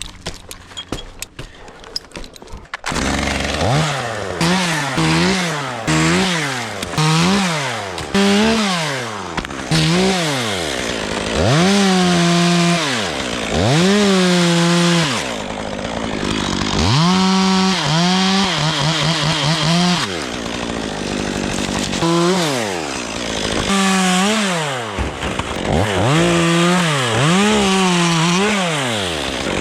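A quick run of sharp clicks, then a chainsaw starts about three seconds in. It revs up and down over and over, held at high revs for a few seconds at a time, as when cutting into chestnut oak.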